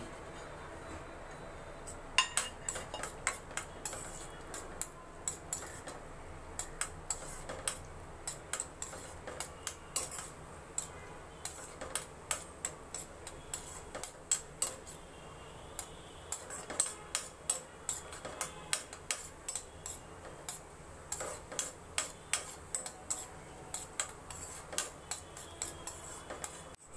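Cashews frying in ghee in a stainless steel kadai: sharp clicks and pops a few times a second, starting about two seconds in, over a low steady background.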